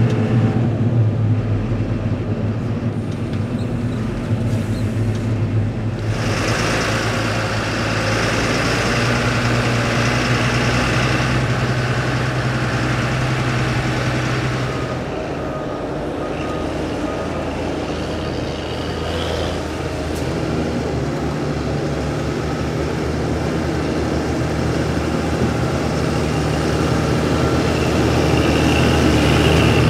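Fendt 926 Vario tractor's engine running steadily while pulling a dumper trailer. A broad rushing noise joins about six seconds in and fades again around the middle. The engine note shifts a little in pitch after that.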